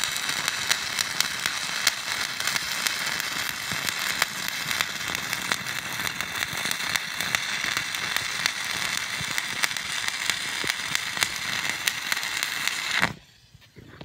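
Stick (SMAW) welding arc crackling and sizzling steadily with frequent sharp pops of spatter, the electrode running at 130 amps, which makes it spit a bit. The arc breaks off suddenly about 13 seconds in.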